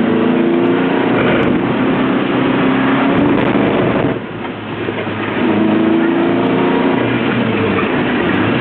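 Lotus Elise's four-cylinder engine running hard at speed over a steady rush of wind and road noise. About halfway through the engine eases off for under a second, then pulls again.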